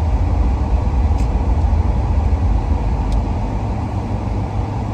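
Steady low rumble of a car heard from inside the cabin: engine and road noise, with a few faint ticks.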